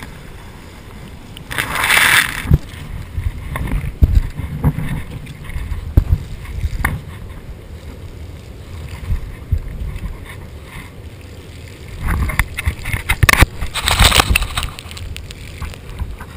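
Garden hose spraying water, heard as louder hissing bursts about two seconds in and again from about twelve to fourteen seconds, over a steady low rumble and knocks of wind and handling on a body-worn camera's microphone.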